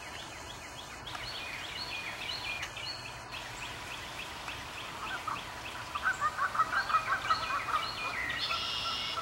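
Steady rain falling on a wetland pond, with birds calling over it: a run of short, high, falling chirps, then a quick series of louder, lower calls near the end.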